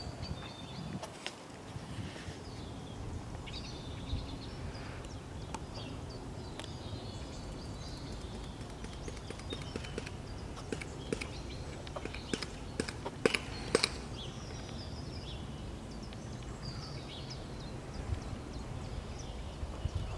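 Outdoor sound of a horse being ridden around a sand arena: soft scattered knocks and clicks of hooves and tack over a low steady rumble, with a few faint high chirps.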